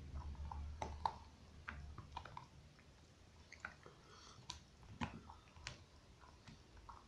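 A dog gnawing and chewing on a bone: quiet, irregular clicks and crunches of teeth on bone, a few sharper ones standing out.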